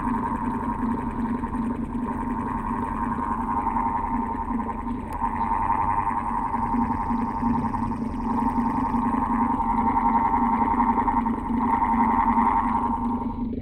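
Old electric fan running, with a steady low hum under a higher, wavering whine. The whine swells and fades in slow waves and drops away near the end.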